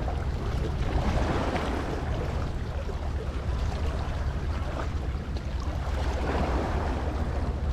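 Sea waves washing in repeated surges, over a steady low rumble of wind on the microphone.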